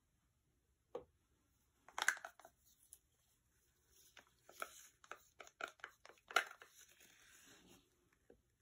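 Scattered soft knocks, taps and crinkly clicks from handling a clear plastic cup of acrylic paint and a wooden stir stick, busiest in the middle.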